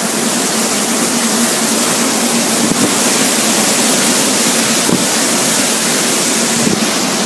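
Hurricane winds and driving rain: a loud, steady rushing noise, with a faint low hum underneath.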